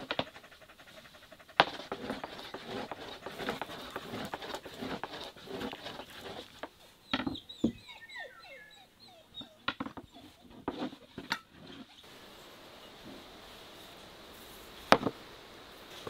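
Outdoor yard sounds: scattered taps and knocks, with a short run of quick chirping bird calls about halfway through. A quieter steady hiss follows, with one sharp click near the end.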